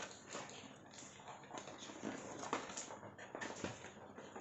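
Faint rustling and scattered light knocks as a Nerf blaster's retail box and packaging are handled.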